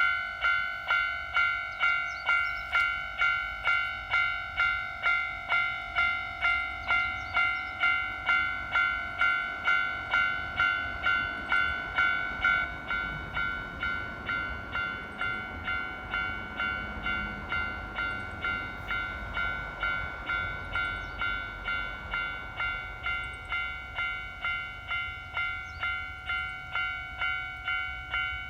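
Japanese railway level-crossing warning bell ringing, an electronic ding repeating about twice a second. It drops in volume about 13 seconds in, as many Japanese crossings turn the alarm down once the barriers are down.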